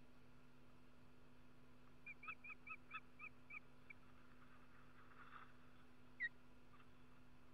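A bird calling faintly: a run of about eight short, clear notes at roughly four a second, then a brief faint rustle and one louder single note near the end.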